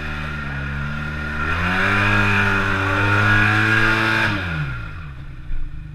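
Motorcycle engine running, revving up about a second and a half in, held high for a few seconds, then dropping back to a lower, quieter note near the end. A short knock comes just before the end.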